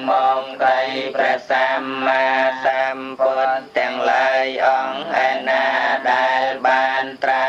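Theravada Buddhist sutra chanting in a near-monotone recitation, the voice holding a fairly level pitch while the syllables follow in a steady, unbroken flow.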